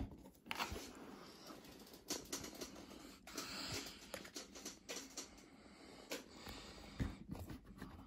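Hands handling a toy washing machine's plastic drum, hoses and cardboard casing, with faint irregular taps, scrapes and rustles.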